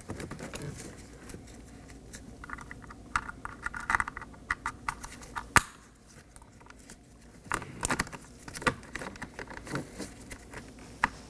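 Small plastic clicks and rattles of wiring-harness connectors being handled and plugged into a car door's master window switch, with one sharp click about five and a half seconds in.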